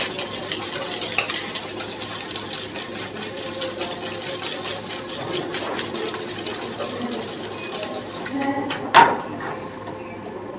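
Ice rattling hard inside a metal cocktail shaker being shaken vigorously for about eight seconds, then stopping. About nine seconds in, a single sharp knock as the shaker is handled on the bar counter.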